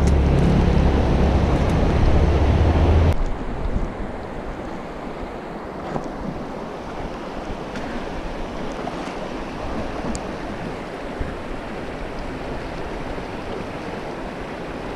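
Fast river water rushing over rocks in a riffle, a steady hiss of running water. For the first three seconds a heavy low rumble from the microphone is added, and it cuts off suddenly.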